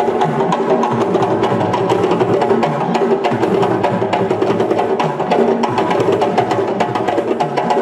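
Live West African drum ensemble playing fast, dense strokes over a steady pitched part, without a break.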